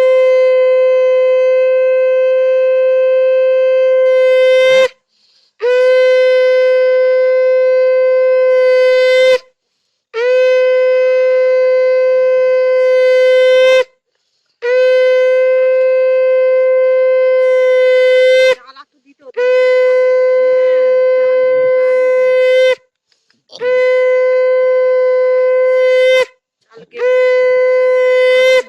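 Conch shell (shankha) blown in seven long, steady blasts of one held note, each lasting a few seconds with short breaths between. Sounded as the auspicious call of a Bengali rite.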